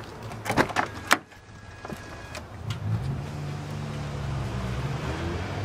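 Clicks and clunks of a car's exterior door handle and latch as the door is opened. About three seconds in, a low steady vehicle hum sets in.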